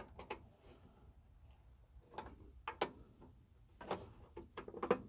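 Scattered light metallic clicks and scrapes as an adjustable wrench is fitted and turned on a small bolt, tightening the clamp that holds a garden tractor's throttle cable.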